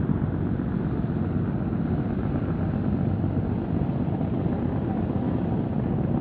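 Steady low engine rumble of a river boat, unchanging throughout.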